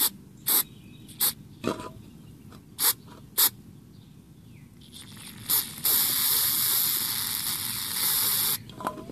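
Aerosol carb and choke cleaner spraying into the small vacuum port of an EGR valve. Several short squirts in the first few seconds, then a steady spray of about three seconds near the end.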